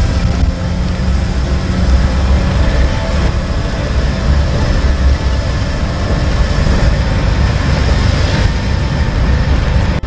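A vehicle driving along, its engine and tyres making a steady low rumble.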